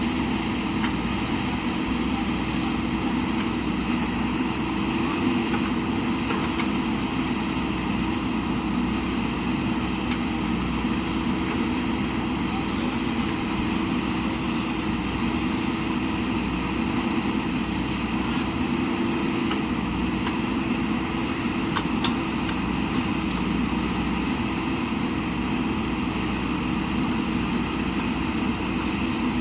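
JCB backhoe loader's diesel engine running steadily at an even speed, with a faint knock about two thirds of the way through.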